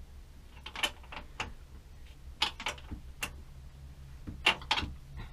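A hand tool working at a boat battery's terminal as the cable is disconnected: irregular small metallic clicks and taps, a few of them louder, over a steady low hum.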